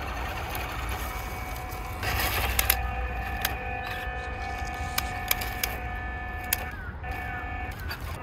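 A 1/10-scale RC mini pickup truck driving over dry fallen leaves. A steady motor whine starts about two seconds in and cuts out briefly near the end, with sharp crackles and snaps of dry leaves and twigs under the tyres.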